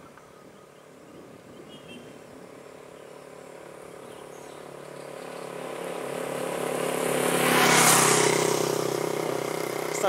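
A motor vehicle's engine approaches and passes close by, getting steadily louder over several seconds and loudest about eight seconds in, then carrying on more quietly.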